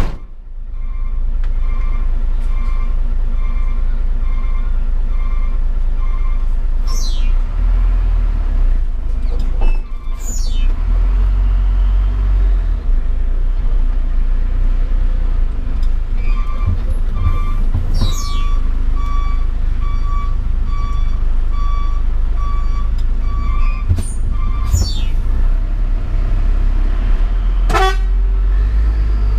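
Hino 500 truck running with a steady low engine drone. A high pulsing beep sounds over it at the start and again in the second half, and a few short falling squeals cut in now and then.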